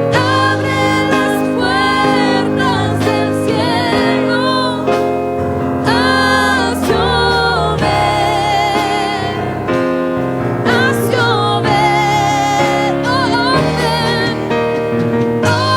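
Gospel worship music: singing with strong vibrato over sustained keyboard chords.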